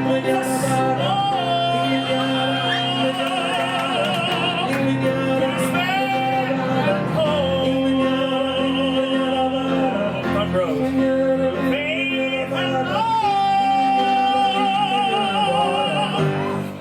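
Live singing in an operatic style, with long held notes carrying a wide vibrato and sliding between pitches, over piano accompaniment.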